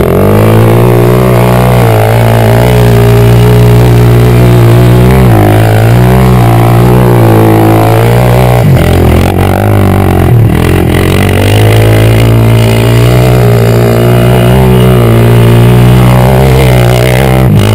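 Loud, steady hum of a camera drone's propeller motors. It holds one pitch with slight wavering and dips briefly a few times.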